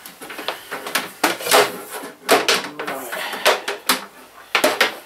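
Electrical cable being pulled and handled by hand, with irregular rustling, knocks and clicks as it drags against the shelf and nearby objects.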